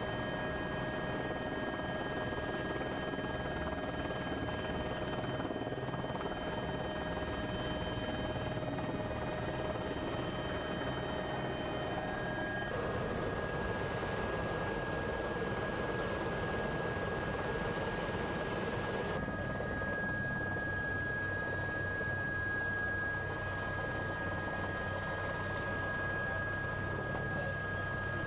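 Helicopter running steadily, heard from on board: a rhythmic rotor beat under a steady engine whine, shifting abruptly twice.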